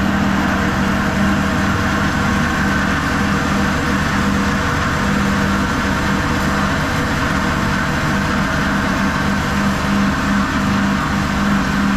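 Atta chakki flour mill running, its electric motor driving the grinder as flour is milled: a loud, steady mechanical hum with a low tone and a grinding rush.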